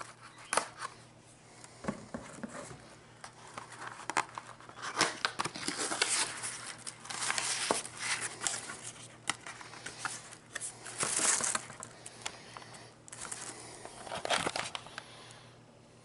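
A sealed cardboard box being opened by hand: a small blade slitting the seals, then cardboard flaps scraping and paper crinkling in irregular bursts, with scattered clicks and taps.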